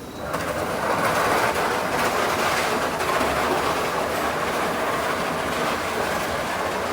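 Loud, steady mechanical clatter that comes in sharply just after the start and holds at an even level.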